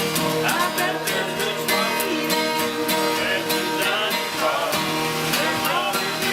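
Acoustic guitar strummed in a steady rhythm, with a bending melody line over the chords.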